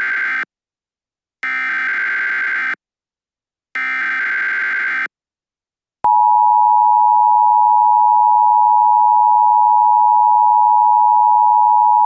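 Emergency Alert System tones: three equal bursts of the SAME header data signal with short gaps between them (the first already under way), then about six seconds in the steady two-tone attention signal (853 and 960 Hz) starts and holds loudly.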